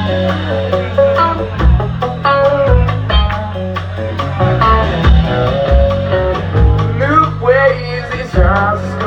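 Band music: guitar and bass over a steady drum beat, with a voice singing a short gliding phrase near the end.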